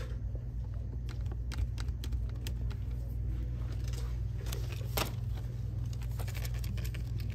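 Store background sound: a steady low hum with scattered light clicks and taps, a few sharper ones partway through.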